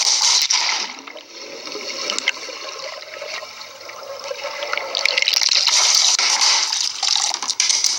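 Water rushing and splashing, easing off for a few seconds after about a second in, then gushing strongly again.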